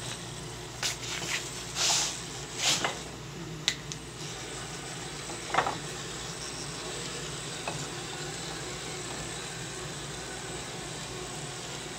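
Traxxas TRX-4 RC rock crawler working over rocks: a steady drivetrain whir under a string of sharp knocks and scrapes from tyres and chassis on the stones in the first half, the loudest knock near the middle.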